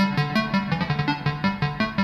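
Sequenced synthesizer music from a Behringer Neutron and Eurorack modular driven by an Intellijel Metropolix sequencer: a steady run of short, plucked-sounding notes, about five or six a second, over a repeating bass line.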